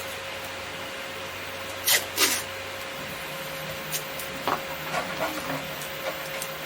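Sticky tape pulled off its roll in two short noisy tears about two seconds in, then a few light clicks and scuffs as the tape is handled and pressed onto the 3D-printed plastic, over a steady faint hum.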